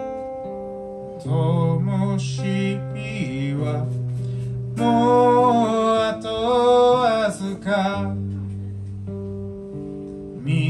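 A man singing live over a strummed acoustic guitar, holding long notes with a wavering vibrato in two phrases. The guitar chords ring on their own at the start, between the phrases and again near the end.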